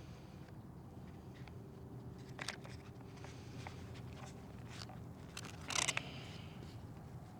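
A few faint clicks and knocks, a sharper click about two and a half seconds in, and a short louder clatter of clicks near six seconds in, over a low steady hum: small parts being handled.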